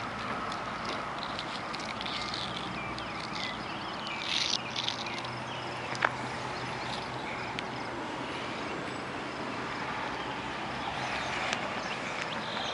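Steady outdoor background noise in an open field, with a few brief rustles and a single sharp click about six seconds in.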